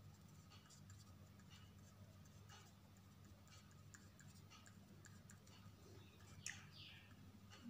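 Faint scratches and taps of a pen writing on paper, short strokes coming irregularly, over a low steady hum.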